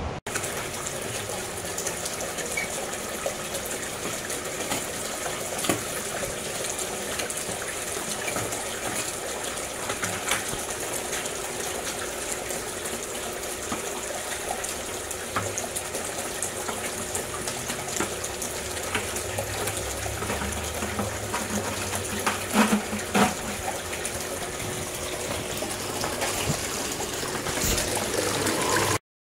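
Water rushing steadily through a Gold Hog Piglet high-banker sluice, fed by hose into the header box and washing down over the riffle mats. There are a few louder knocks about three-quarters of the way through, and the sound cuts off suddenly near the end.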